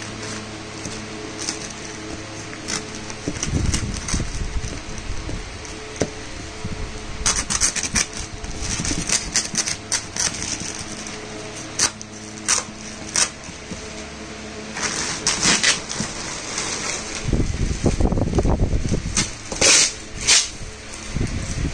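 Woven plastic sack rustling and crinkling in irregular bursts as it is pulled and cut open with scissors.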